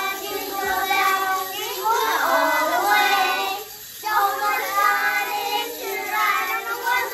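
Children singing together, with a short break just before four seconds in.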